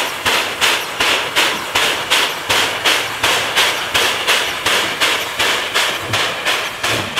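JS class 2-8-2 steam locomotive working slowly, its exhaust chuffing in an even beat of about three chuffs a second.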